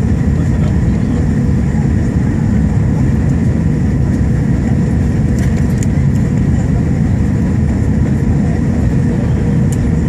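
Steady loud cabin noise of an Airbus A320 in flight shortly before landing: engine and airflow rumble with a few faint steady tones above it.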